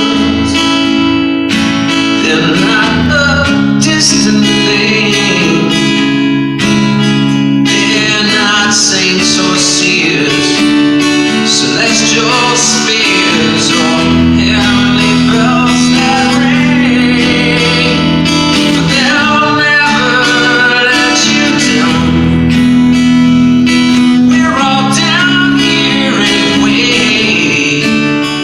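A man singing a rock song over strummed guitar chords.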